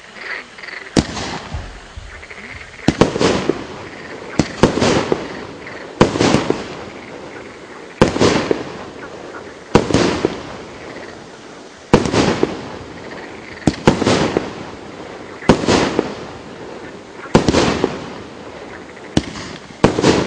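A 30 mm multi-shot consumer fireworks cake firing shot after shot, about one every two seconds. Each shot is a sharp launch thump followed a moment later by the bang of the shell bursting, which trails off briefly.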